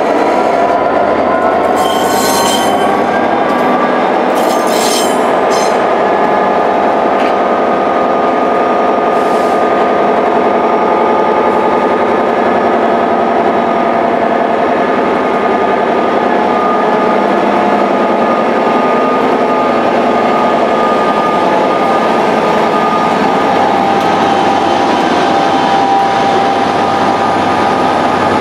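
EWS Class 67 diesel-electric locomotive, its two-stroke V12 engine running under power at close range: a loud, steady engine drone with a whining tone that rises slightly in the first couple of seconds and then holds. Two brief high squeals come about two and five seconds in.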